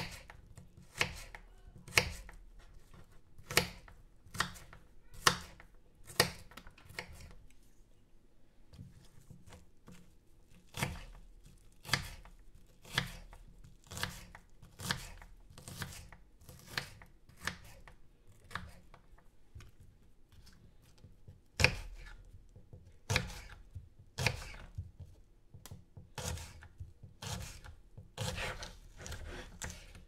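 Kitchen knife chopping a red onion on a wooden cutting board: sharp knocks of the blade through the onion onto the wood, about one a second, with a quieter pause of a couple of seconds in the middle.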